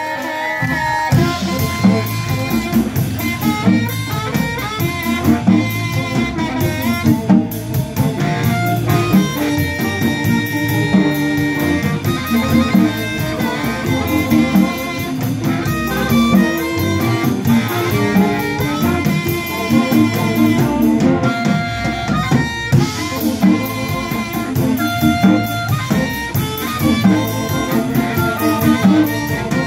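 Live blues band playing an instrumental section: electric guitars, electric bass and drum kit, with an amplified harmonica blown into a cupped microphone.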